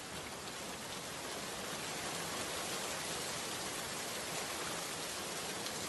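Steady rain falling, an even hiss of drops, rising slightly over the first second or two and then holding level.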